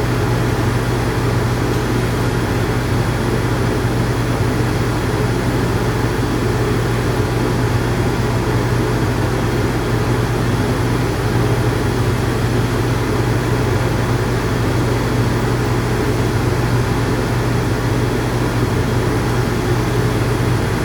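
Electric dog grooming clippers running steadily with a constant low hum as they cut through the dog's coat.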